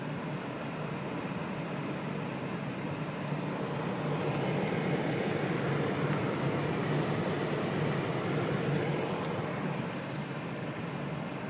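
Car driving in snow: steady engine and tyre rumble that grows louder through the middle and eases off again near the end.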